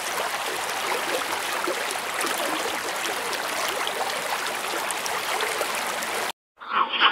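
Steady rushing water noise of an underwater scene, cutting off abruptly about six seconds in; a louder, rough animal sound starts just before the end.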